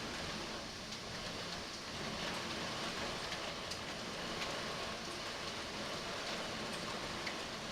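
Heavy rain falling steadily in a storm, with a few scattered sharp ticks of impacts.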